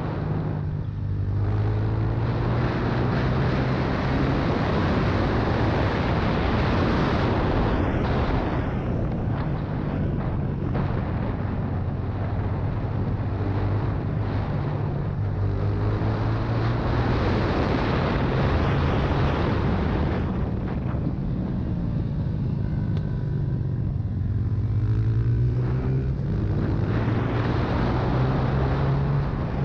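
Honda CRF125's single-cylinder four-stroke engine heard from on board the bike at racing speed, running hard with its pitch easing off into corners and climbing again as the throttle comes back on, several times over.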